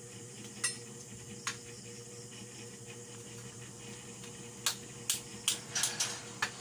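Dishes and utensils clinking during a meal: two separate clicks, then a quicker run of clinks near the end, over a faint steady hum.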